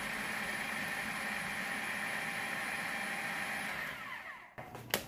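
Food processor running, its blade chopping chunks of raw cassava into coarse pieces, with a steady motor sound that cuts off about four and a half seconds in. A few sharp clicks follow near the end.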